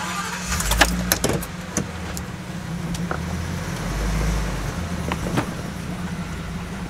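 Motorhome engine running at low speed as the rig pulls slowly away, its low rumble swelling twice. A few sharp clicks and rattles come in the first second and a half, with single clicks later.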